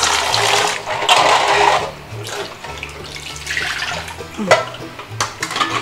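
Kitchen tap running into a steel bowl of eggs as they are rinsed, stopping about two seconds in. A couple of light knocks follow as the steel bowl of eggs is handled.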